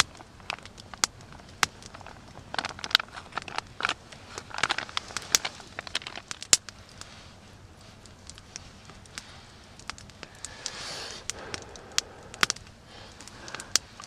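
A foil retort pouch crinkling as curry is squeezed out over rice in a metal mess tin, then a wooden spoon stirring and scraping in the tin. Sharp crackles and clicks run throughout.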